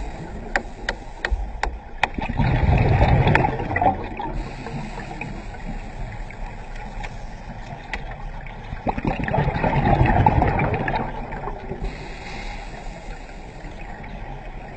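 Underwater scuba breathing: two rushes of exhaled bubbles from a diver's regulator, several seconds apart, over a steady underwater hiss. There are a few sharp clicks in the first couple of seconds.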